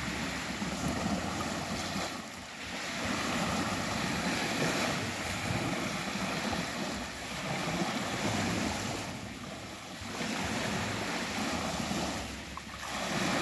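Small waves breaking and washing up a sandy beach, swelling and easing every few seconds, with wind buffeting the microphone.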